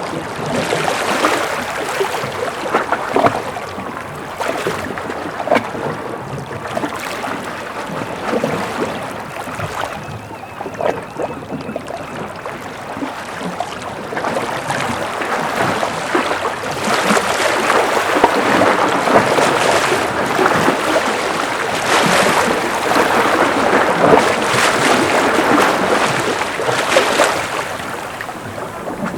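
Gentle ocean waves lapping and splashing against the rocks of a breakwater, a continuous wash of small splashes that swells louder about halfway through.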